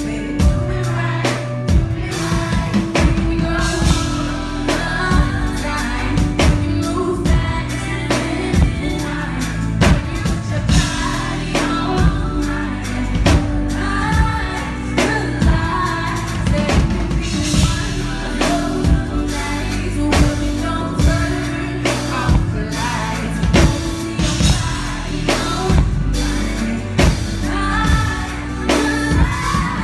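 Live R&B performance: a female singer sings over a band with drum kit, bass and keyboard keeping a steady beat.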